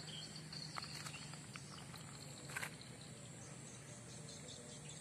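Faint outdoor ambience with a steady high insect drone and a low hum underneath, broken by a few light clicks and taps, the loudest about two and a half seconds in.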